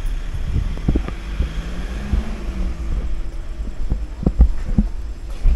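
Wind rumbling on a handheld camera's microphone, with irregular dull thumps from handling and footsteps as it is carried at a walk.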